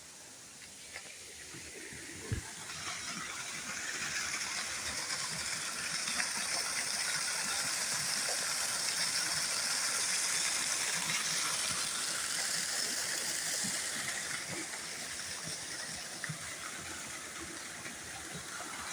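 Water pouring over an old sawmill dam, about a 20-foot waterfall, a steady rushing hiss. It grows louder over the first several seconds, then eases off after about fourteen seconds.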